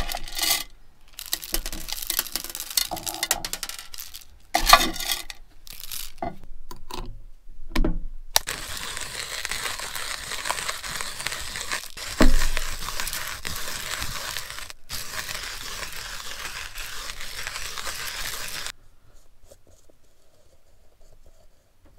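Coffee beans scooped and poured into a hand-cranked coffee grinder, a few seconds of scattered clicks and rustles. Then the crank is turned steadily for about ten seconds, the grinder crushing the beans in a continuous grinding noise that stops suddenly.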